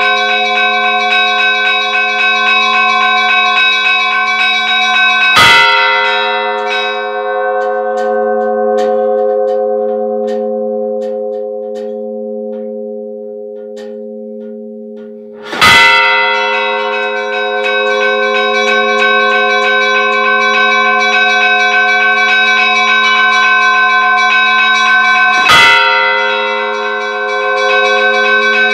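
Church bells ringing: a bell is struck three times, about ten seconds apart. Each stroke rings out with many overtones and slowly fades before the next.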